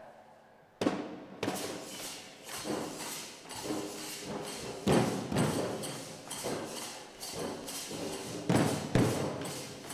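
A troupe beating large shoulder-slung barrel drums. After a near-quiet first second they come in together with a sharp stroke, then keep up a steady pounding beat with heavier accented strokes.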